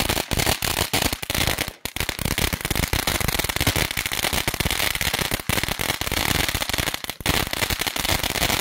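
Ground firework fountain burning, its jet of sparks giving a dense, continuous crackling and hissing from crackling stars.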